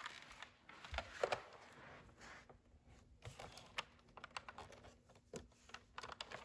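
Light, irregular plastic clicks and taps from a Nerf Rapidstrike CS-18 blaster being handled, its parts opened and fiddled with; the blaster is not firing.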